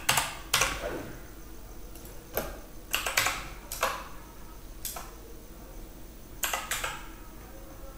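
Irregular keystrokes on a computer keyboard: about nine sharp clicks spread over several seconds, some in quick pairs, over a faint steady hum.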